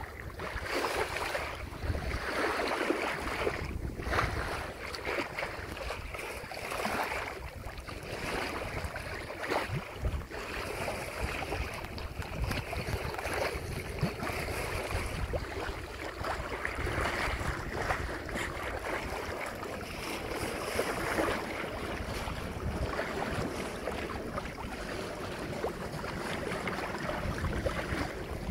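Water rushing and splashing along the hull of a sailboat under way, with wind buffeting the microphone; the noise swells and eases without letup.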